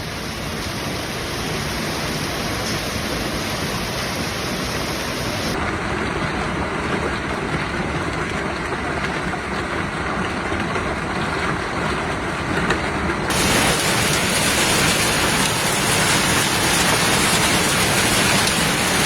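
Heavy storm rain pouring steadily, in three clips cut together; the last, from about 13 seconds in, is louder and more hissing.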